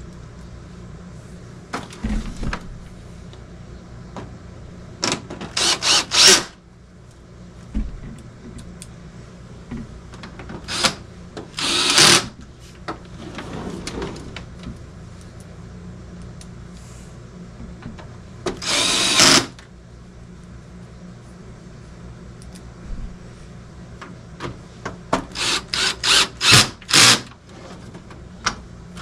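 Cordless drill/driver running in short bursts as it drives screws into the plastic case of a dehumidifier, with a run of quick trigger pulses near the end. A steady low hum runs underneath.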